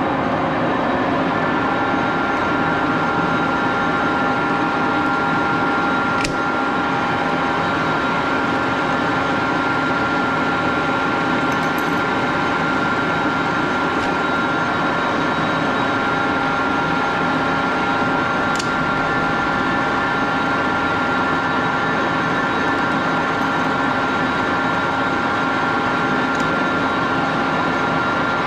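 Axelson lathe running steadily with a 5C lever collet closer on the spindle: an even mechanical hum with a few fixed whining tones. A sharp click comes about six seconds in and another near nineteen seconds.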